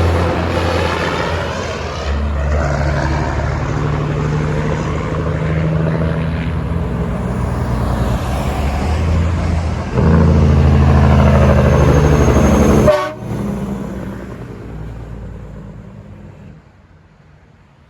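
Truck-mounted train horn sounding long, steady chords over the noise of a passing truck. It is loudest just before it cuts off sharply about 13 seconds in, and the truck's road noise then fades away.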